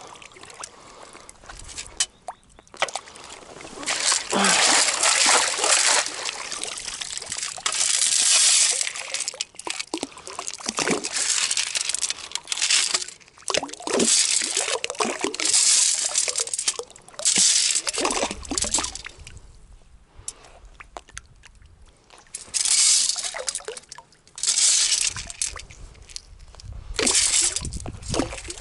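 A perforated metal sand scoop swished and shaken in shallow river water to wash out the silt, water sloshing and streaming out through its holes in short bursts of a second or two, again and again.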